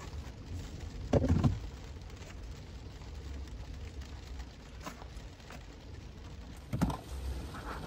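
Very gentle rain pattering on a van's roof and windows, heard from inside: soft, irregular light tapping over a low steady hum. There is a dull bump about a second in and another near the end.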